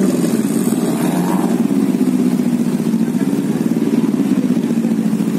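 Off-road 4x4 engine running, its note rising and falling with the throttle.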